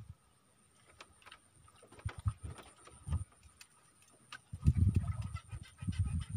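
Scattered clicks and knocks of a fishing rod being handled and pulled from its holder on a bamboo raft, then heavier low thumps from about four and a half seconds in as the rod is lifted and struck.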